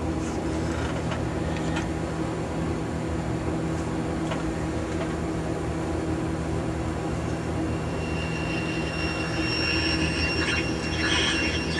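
Philco 50-920 tube radio, freshly repaired IF transformers, warming up after switch-on: its speaker gives a steady hum and hiss. From about eight seconds in, high whistles and crackle come in as the set is tuned.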